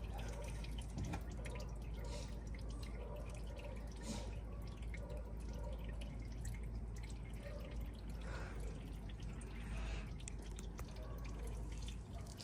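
Old engine oil dripping slowly as the last of it drains out of a car's oil pan, over a steady low rumble.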